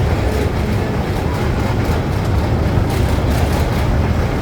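Miniature toy train running along its track, a steady low rumble with a few faint rattling clicks about three seconds in.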